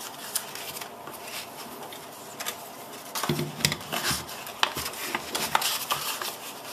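Stiff file-folder cardstock pattern pieces rustling and rubbing as they are handled, folded and fitted around a pistol, with scattered light clicks and a few knocks on the table about three to four seconds in.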